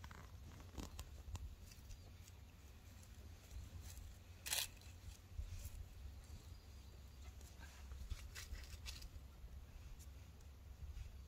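Small hand knife cutting young mugwort stems at the ground: faint scattered snips and tearing of stems with leaf rustle, the sharpest cut about four and a half seconds in and a few more around eight to nine seconds.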